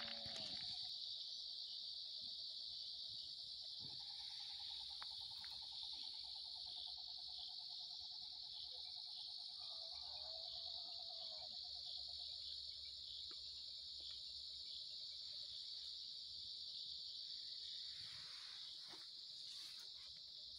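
Crickets chirping in a steady, high-pitched night chorus. A faint, drawn-out, wavering tone sounds in the distance from about four seconds in until about twelve seconds.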